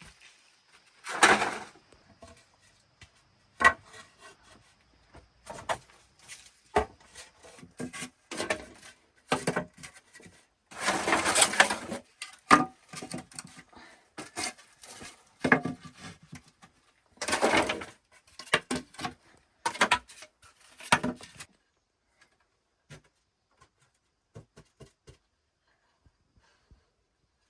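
Irregular wooden knocks and short scrapes, as of wood being handled and worked, busy for about twenty seconds, then only a few faint clicks near the end.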